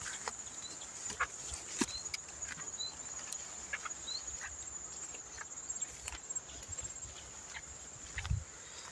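Insects trilling steadily at a high pitch, with short chirps about once a second and scattered clicks; a low thump near the end.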